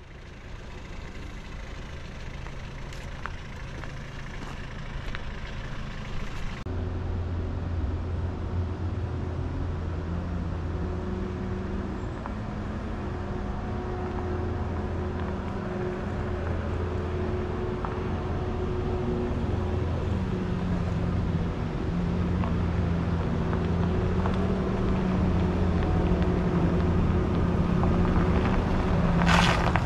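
Škoda 15Tr articulated trolleybus driving up toward the camera. It gives a steady low drone that comes in strongly about seven seconds in and grows louder as the bus nears, with a brief hiss near the end.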